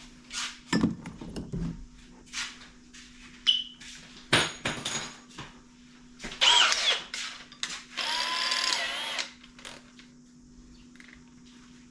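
Power drill run in two short bursts, the second steadier and about a second and a half long, between clicks and knocks from handling tools and parts.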